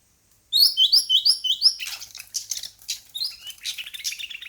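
Oriental magpie-robin singing: starting about half a second in, a quick run of five repeated rising whistled notes, then a busy jumble of varied chirps and trills.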